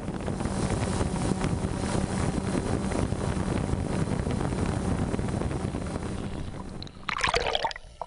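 Wind on the microphone and waves splashing around a small crewed submersible wallowing at the sea surface, with a low steady hum underneath. About seven seconds in it gives way to a brief wavering high sound.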